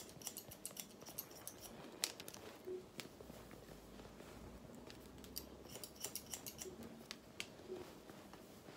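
Hairdressing scissors snipping the ends of wet hair, point cutting with the tips. It comes as quick runs of small, faint snips with short pauses between them.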